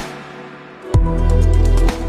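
Chill electronic background music. The bass and beat drop out briefly at the start, then the kick drum and bass come back in about a second in.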